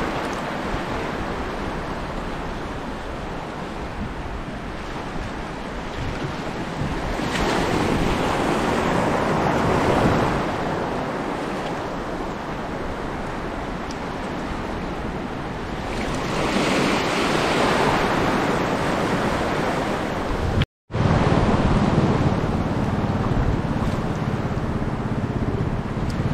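Sea waves washing in, a steady rush that swells louder twice, with wind buffeting the microphone.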